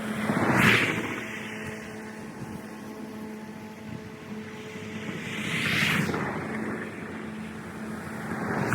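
Steady hum of an electric lawn tool's motor, with three passing vehicles swelling up and fading away: the loudest about a second in, the others about six seconds in and at the end.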